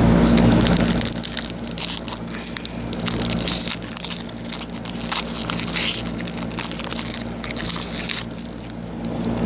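Crinkling and rustling of a foil trading-card pack wrapper and the cards being handled: many small irregular crackles. A steady low hum fades out about a second in.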